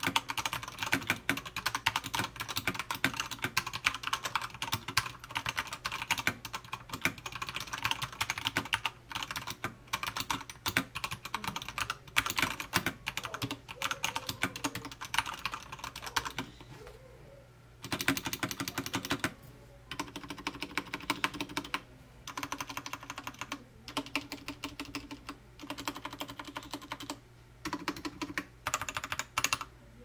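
Typing on a Royal Kludge RK96 mechanical keyboard, its stock RK red linear switches under thin ABS keycaps on a solid metal plate: a fast run of keystroke clacks. The typing stops for a moment a little past halfway, then comes back in shorter bursts with brief gaps between them.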